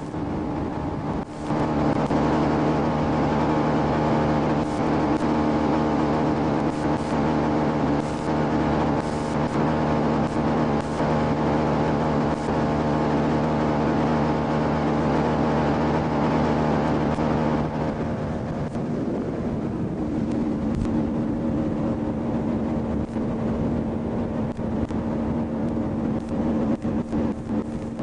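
Boat engine running steadily under a rushing hiss of wind and water; about two-thirds of the way through the engine note changes and the hiss drops off.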